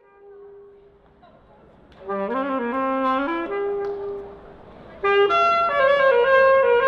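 Background music: after a soft opening, a melody of held, pitched notes comes in about two seconds in, and a louder phrase starts about five seconds in.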